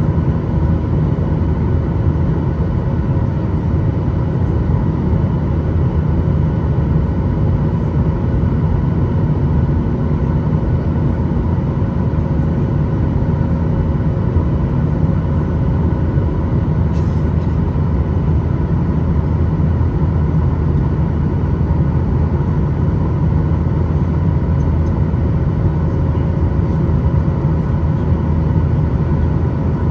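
Cabin noise of a Boeing 737-800 in the climb after takeoff: its CFM56-7B turbofan engines and the airflow give a steady low rumble, with a few faint steady hums above it.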